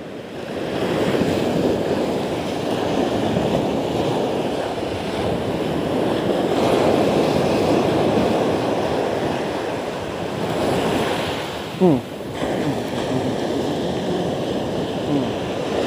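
Surf breaking and washing up the beach at the water's edge, a steady rushing that swells and eases. A brief falling squeak sounds about twelve seconds in.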